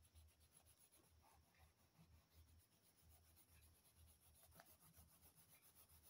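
Near silence, with faint rubbing of fingertips smudging crayon colour on paper.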